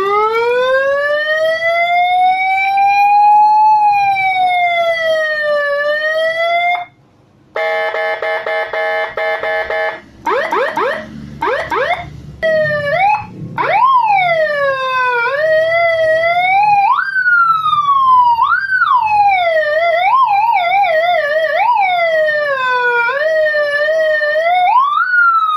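Seven-tone electronic siren module stepping through its sounds. First comes a slow wail that rises and falls over about seven seconds. After a brief break there is a steady horn-like tone pulsed rapidly on and off, then quick short sweeps, then faster yelping and warbling up-and-down patterns for the rest.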